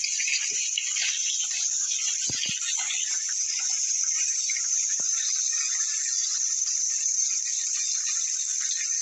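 Bacon sizzling in a frying pan: a steady crackling hiss. A couple of soft knocks come about two seconds in and a single click around five seconds.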